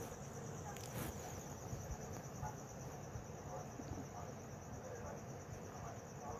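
Crickets chirping steadily in the background, with a few faint clicks, one about a second in.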